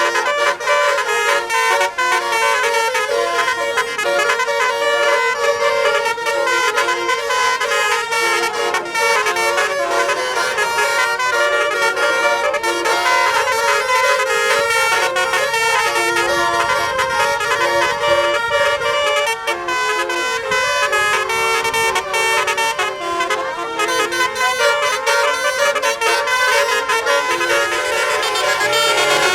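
Bus 'telolet' horn, a Basuri multi-tone electric horn, playing a tune of quickly changing notes with no break.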